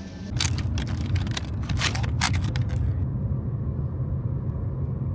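Car driving: a steady low road-and-engine rumble, with a run of sharp clicks and rustling in the first two or three seconds.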